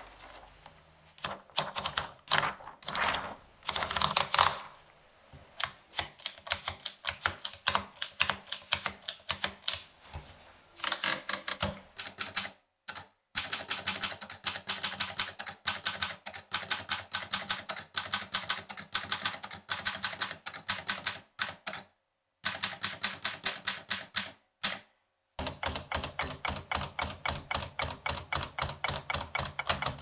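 A restored 1932 Remington Remie Scout portable typewriter. First comes the rustle and ratcheting of paper being rolled in at the platen. Then steady typing follows, the typebars striking the paper several times a second with a few short breaks.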